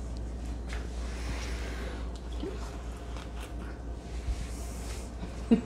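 Faint clicks and knocks of a serrated knife and a plastic spatula being handled on a wooden cutting board, over a steady low hum. A brief louder sound comes near the end.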